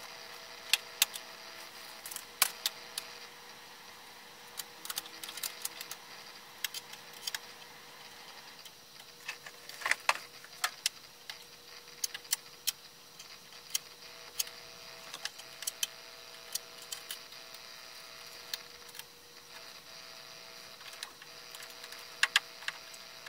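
Irregular clicks and taps of hands handling plastic and metal parts inside a 3D printer's enclosure, with a cluster of louder clicks about ten seconds in, over a faint steady hum.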